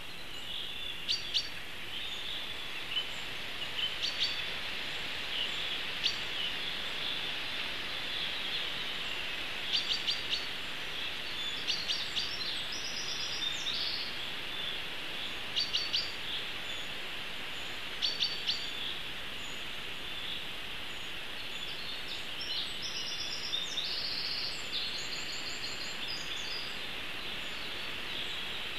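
Forest ambience of small wild songbirds chirping in short calls every second or two over a steady hiss, with a longer, more varied song phrase near the end.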